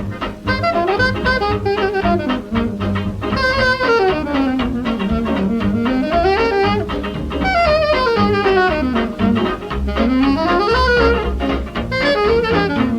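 A 1930 hot jazz dance orchestra playing a stomp, heard from a 78 rpm record. Saxophones and brass play rising and falling melodic lines over a steady beat.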